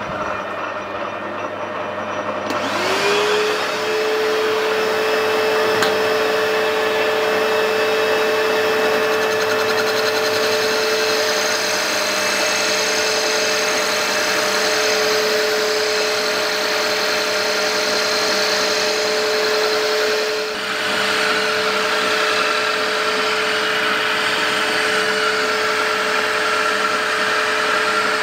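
Vacuum cleaner switched on about two and a half seconds in, its motor whine rising and settling to a steady pitch, running at the lathe tool to draw off the dust from a resin-bonded fibre gear blank. Under it the lathe runs steadily as the blank is faced down.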